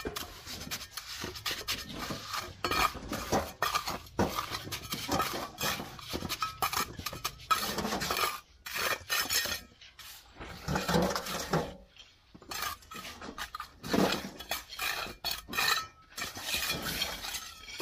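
Steel mason's trowel scraping and tapping wet mortar along a course of red bricks: irregular scrapes and clinks of metal on cement and brick.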